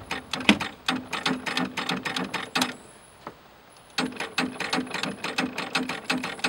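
Yamaha EF3000iSEB inverter generator being cranked on its electric starter: a rapid, even clicking chatter with a low hum. It stops about two and a half seconds in and starts again about a second later, as the start is tried twice. The engine is the one that failed with a broken piece of weld inside its cylinder head.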